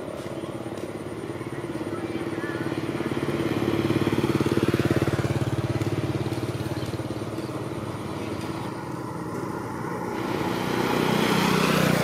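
Motorcycle engines passing along the road: the engine hum grows to its loudest about four to five seconds in, fades away, and a second one draws near at the end.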